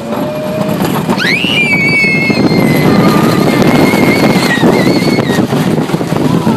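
A rider letting out a long, high scream that sweeps up sharply and is held, wavering, for about four seconds over the loud, rising rumble of the wooden roller coaster running on its track.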